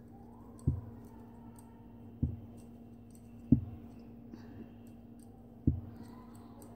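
Metal knitting needles clicking and ticking faintly as stitches are worked, with four dull thumps spaced through it, the third the loudest, over a steady low hum.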